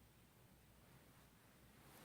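Near silence: faint room tone, with a soft rustle just beginning at the very end.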